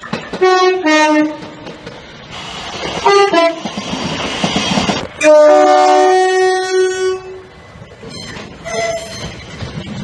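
Electrostar electric multiple-unit trains sounding two-tone horns. There are two quick high–low pairs in the first second and another short pair about three seconds in, then a loud two-note blast held for about two seconds a little past five seconds in. The rush of the trains running in fills the gaps.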